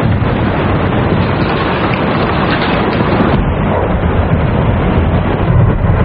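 Snow pouring in through the collapsed roof of the Metrodome: a loud, steady rushing noise with a deep rumble underneath.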